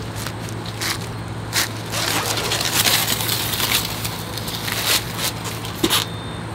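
Plastic and foam packing wrap on a folded e-bike crinkling and rustling as the bike is pulled out and handled, with a few sharp knocks; busiest about two to four seconds in.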